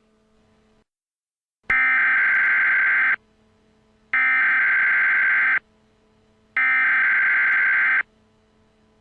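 Emergency Alert System SAME header: three identical bursts of harsh, warbling digital data tones, each about a second and a half long, with about a second's gap between them.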